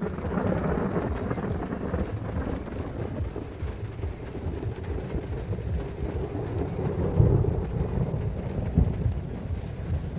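Thunder rumbling over steady rain during a thunderstorm, the rumble swelling louder about seven seconds in and again briefly near nine seconds.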